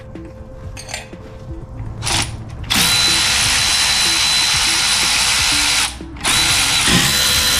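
A power tool driving a socket on a long extension, running in a loud, steady hissing whir with a constant whine. It starts nearly three seconds in, cuts out briefly around six seconds, then runs again.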